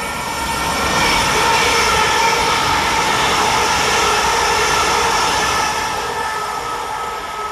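Two coupled Class 331 electric multiple units passing through the station: a dense rush of wheels on rail with a steady electric whine over it, loudest as the units go by, then fading away as they leave.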